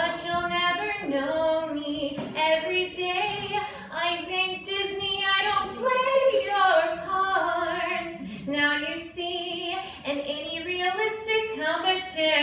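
A woman singing solo into a microphone, holding notes and sliding between them.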